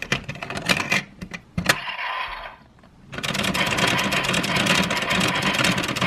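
Bandai DX Geartlinger toy changer: sharp plastic clicks as a Sentai Gear is handled and fitted. About three seconds in, a dense run of rapid clicking begins, with the toy's electronic sound effect playing through its small speaker.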